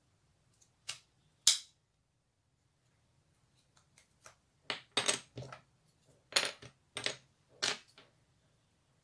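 Sharp clicks and light wooden clatter of wooden clothespins being taken apart by hand, the metal springs pulled free and the wooden halves set down on a hard table. The clicks come one at a time at first, the loudest about a second and a half in, then in a busier run from about five to eight seconds.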